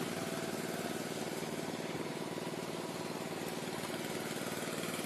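Small engine running steadily at a constant speed, on a construction site during concrete topping work.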